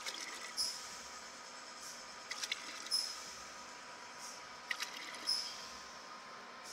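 Vertical form-fill-seal packing machine filling oil sachets, running through its cycle: a steady hum with sharp clicks followed by short hissing puffs, repeating about every two and a half seconds.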